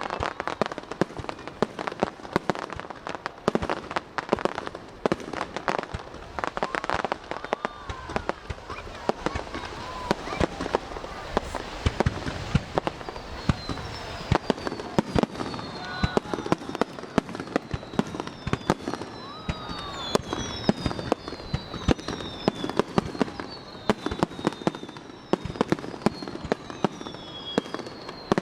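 Fireworks display: a rapid, continuous string of sharp bangs and crackling bursts. From about halfway on, a series of high whistles each falls in pitch.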